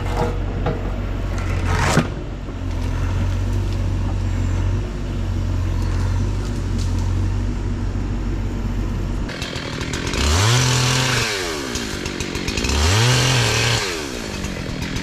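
Husqvarna chainsaw idling steadily, then revved up twice to full throttle, each rev rising quickly and held about a second before dropping back. A sharp click about two seconds in.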